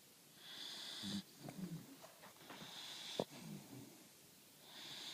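A four-month-old puppy snoring in its sleep, about three breaths: each a high, breathy whistling hiss followed by a low wavering snore. There is one sharp click about three seconds in.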